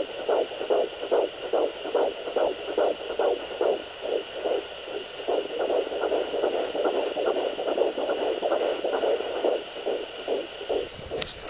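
Fetal Doppler picking up an unborn baby's heartbeat: a rapid, even whooshing pulse of about two and a half beats a second, typical of a fetal heart rate, over a steady hiss. A few sharp crackles come near the end.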